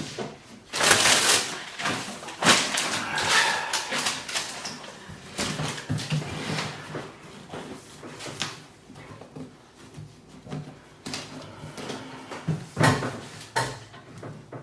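Irregular rustling, crinkling and light knocking of protective plastic film and packaging being peeled off and handled.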